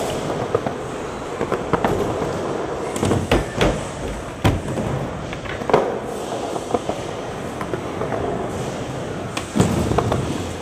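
Skateboard wheels rolling over concrete and wooden ramps, with sharp clacks of the board popping and landing, several in quick succession near the middle and a heavier one near the end.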